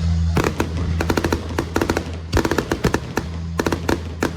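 Fireworks going off in quick volleys of sharp bangs and crackles, coming in clusters about half a second in, around two and a half seconds in, and near the end. Music with a steady low bass plays underneath.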